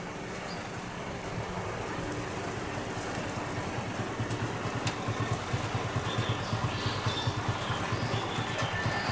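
Airbus A320-214's CFM56 jet engines on landing approach: a steady rushing rumble growing steadily louder as the aircraft nears, with gusty wind buffeting the microphone.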